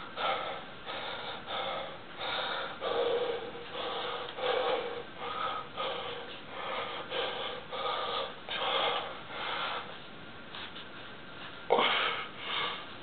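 A man breathing hard and fast in short forceful breaths, about two a second, while straining to bend a horseshoe by hand. The breaths stop about ten seconds in, followed by a louder grunt near the end.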